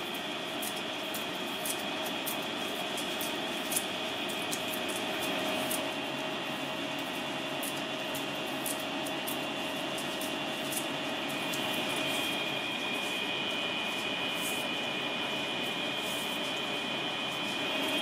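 A steady mechanical drone and hiss with a few held high tones, and faint scattered clicks above it.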